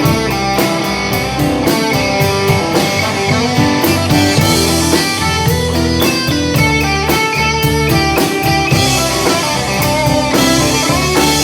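Instrumental break in a country-rock song: guitar playing over a full band with drum kit, no vocals.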